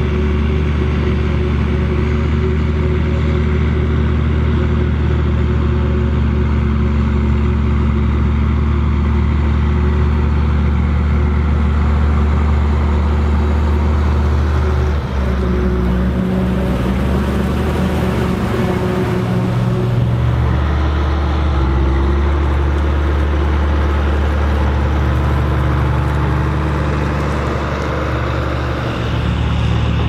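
Diesel engines of a self-propelled forage harvester and a Case 2294 tractor running together under load while chopping maize into a silage trailer: a loud, steady low drone that shifts in pitch a few times.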